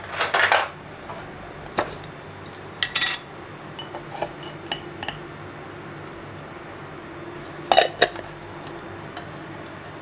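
Metal teaspoon clinking against a glass jar and an enamel pot while a powder is spooned into milk. It comes as a few clusters of sharp clinks, the loudest at the start, about three seconds in and about eight seconds in, with lighter taps between.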